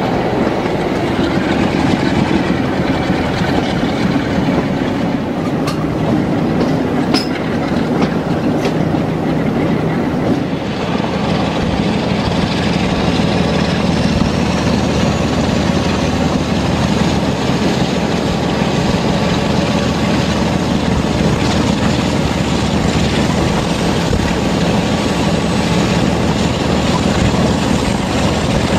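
Class 47 diesel-electric locomotive's Sulzer twin-bank V12 engine working hard under load, heard from just behind the engine as the train runs, with a few clicks of wheels over rail joints. A little after ten seconds in the engine note fills out and a faint whistle rises in pitch.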